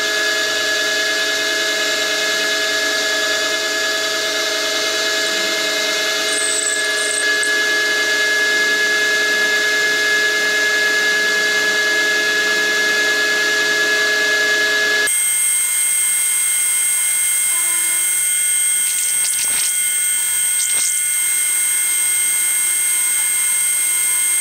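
Milling machine running with a 6 mm roughing end mill cutting a slot in an aluminium casting: a steady whine of several tones. The pitch of the whine shifts abruptly about two-thirds of the way through.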